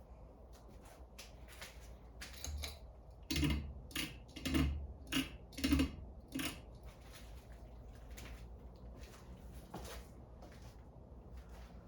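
A run of irregular sharp clicks and knocks, about a dozen, thickest and loudest in the middle, where several land with a dull thump.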